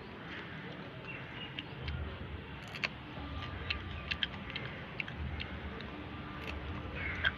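Someone chewing fresh green chilies: irregular sharp crunching clicks over a low rumble.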